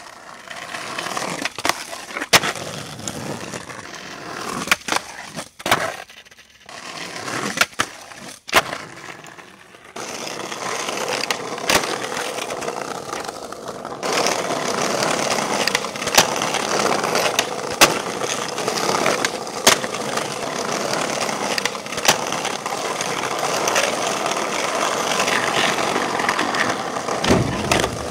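Skateboard wheels rolling over pavement, with repeated sharp clacks of the board's tail popping and landing. The rolling becomes steady and louder in the second half.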